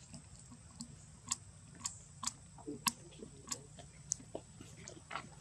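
A string of sharp, irregular clicks, about two a second, over a low steady hum.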